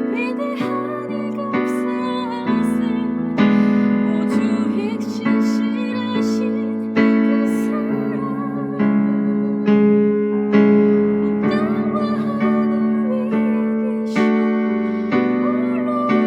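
Keyboard playing a slow worship hymn in sustained chords, a new chord struck about once a second and each one fading away before the next.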